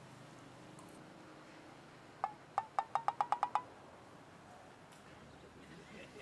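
A quick run of about nine light, ringing clinks, coming faster and faster over about a second and a half before stopping, over faint room tone.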